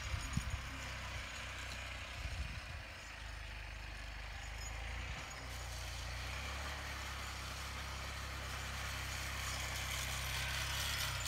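Steady low rumble with a hiss over it, and a few short knocks in the first three seconds.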